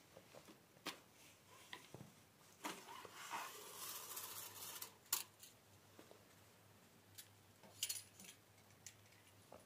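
Faint handling of shotgun parts: scattered small metallic clicks and clinks, with a rustling stretch in the middle and a sharper click about five seconds in.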